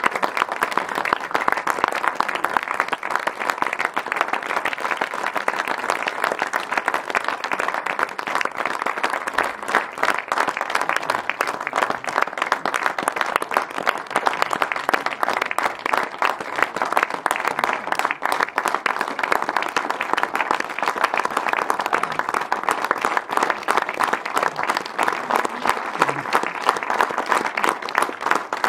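Audience applause, many people clapping steadily and without a break throughout.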